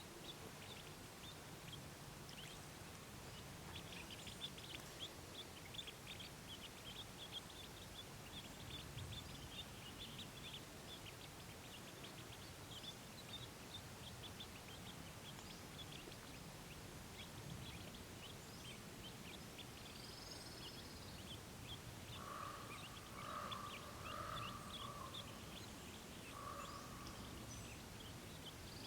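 Mallard ducklings faintly peeping in a rapid, continuous patter, with a few soft low calls from the mallard hen about three-quarters of the way in, over steady outdoor background noise.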